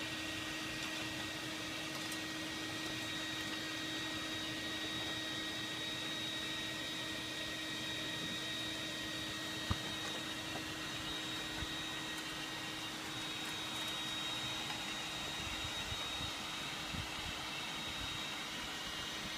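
Small electric blower feeding air into a coal-fired brick furnace, running with a steady whir and a constant hum. One sharp tap of metal is heard about halfway through.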